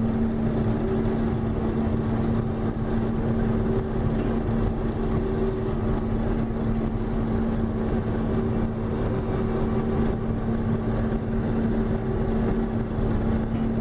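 John Deere 6620 combine running steadily while harvesting corn, heard from inside the cab: the diesel engine and threshing machinery make a constant running noise with a steady hum.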